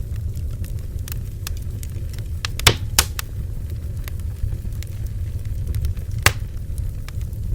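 Wood bonfire burning: a steady low rumble with scattered crackles and pops, and a few louder snaps, two close together about three seconds in and another near the end.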